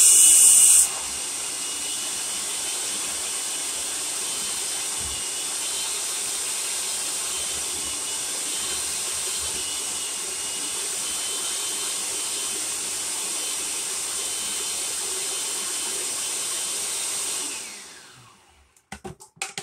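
Large-capacity food processor running, blending plant-based butter, vegetable shortening, sugar and salt together. Much louder for the first second, then a steady whir that winds down near the end, followed by a few clicks.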